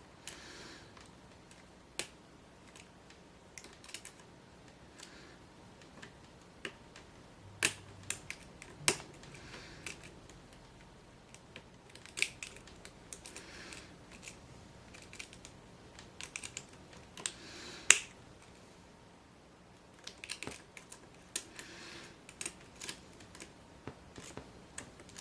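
Irregular small metallic clicks and taps of lock picks and a tension wrench working the pins of a padlock, with a few sharper clicks about 8, 9 and 18 seconds in.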